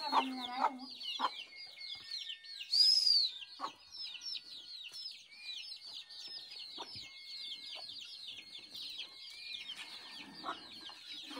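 Chickens: a continuous stream of many high, short peeping chirps, with one louder call about three seconds in.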